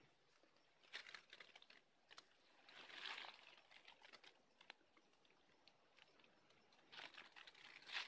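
Faint rustling of chili plant leaves and stems, with a few small crackles, as ripe red chili peppers are picked off the plant by hand.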